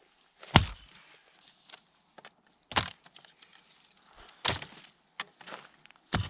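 Four sharp knocks, about two seconds apart.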